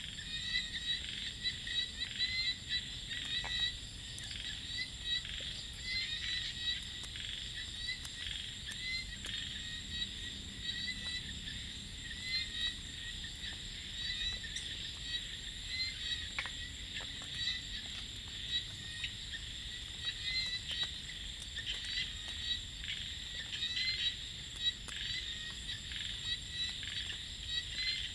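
Dense night chorus of small frogs (kheat) in rice paddies: many overlapping short chirping calls repeating without pause, with cicadas keeping up a steady high-pitched drone behind them.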